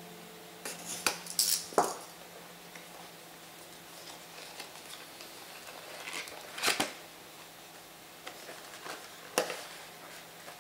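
Small cardboard blind box being opened by hand: it is slit with a cutter, then a printed wrapper is torn open and the card is pulled apart. These come as scattered sharp rustles and snaps, a cluster about a second in, then single loud ones past the middle and near the end.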